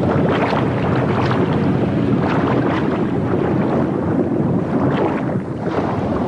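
Steady rushing and rumbling of water heard underwater.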